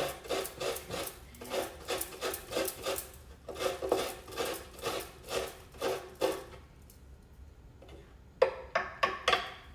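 Traditional coconut scraper's serrated metal blade rasping fresh coconut meat out of the half shell in quick, regular strokes, about two to three a second. The strokes pause about six and a half seconds in and start again with a few sharper strokes near the end.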